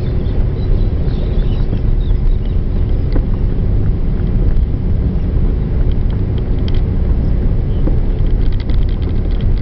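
Car driving slowly on a sealed road, heard from inside the cabin: a steady low engine and road rumble with a faint steady hum. Light rattles and clicks come in near the end.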